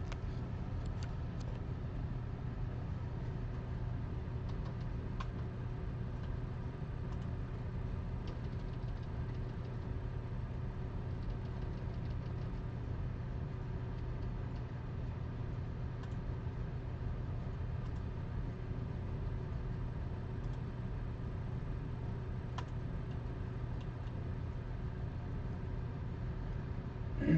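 Steady low hum, unchanging throughout, with a few faint clicks scattered through it.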